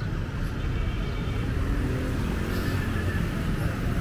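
Street traffic: cars and motorbikes passing on a wet city road, a steady low wash of engine and tyre noise that grows a little louder after about a second.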